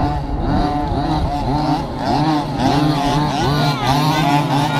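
Several 1/5-scale petrol RC trucks' small two-stroke engines revving at once, each pitch rising and falling over and over as the trucks accelerate and brake round the track.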